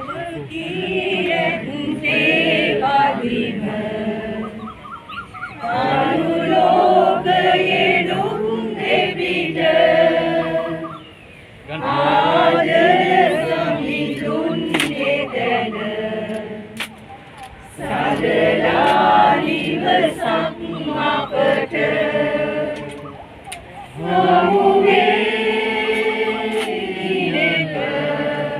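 A group of voices singing together in slow, held phrases a few seconds long, with short breaks between them.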